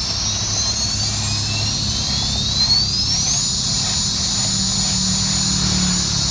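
A high mechanical whine that climbs in pitch, then holds steady, over a constant low hum, like a motor spinning up and running.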